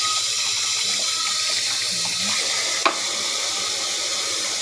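Kitchen tap running steadily into a stainless steel sink, the water splashing onto a metal strainer. A single sharp click comes nearly three seconds in.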